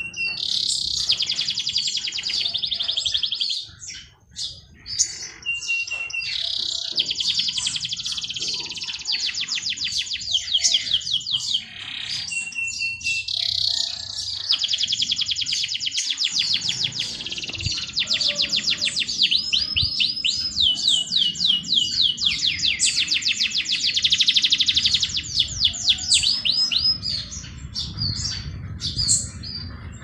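A songbird singing long, fast trills, phrase after phrase, with a short steady note opening several of them.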